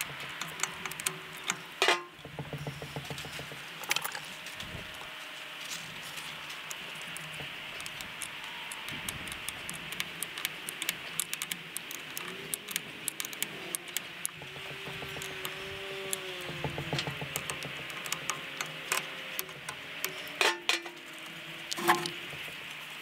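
Hand tools and metal parts clicking and clinking while the negative cable is fitted to the tractor's battery. There are short runs of rapid, even ticking and a few louder knocks, two of them near the end.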